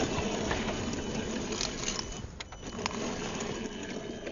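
1/10-scale RC rock crawler's electric motor and drivetrain whirring as it crawls over rock, with a few sharp clicks about halfway through.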